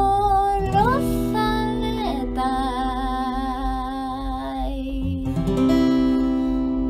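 A woman singing long, wavering notes to her own strummed acoustic guitar; the voice stops about five seconds in and a guitar chord is strummed and left ringing.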